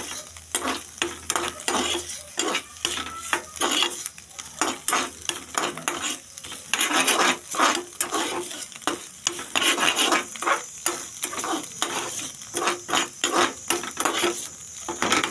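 Metal spatula scraping and stirring food round a frying pan in quick repeated strokes, a couple or so a second, over a steady sizzle of frying.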